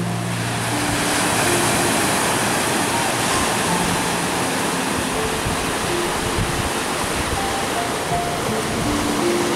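Steady rush of ocean surf breaking on the beach, with soft, slow music notes playing over it.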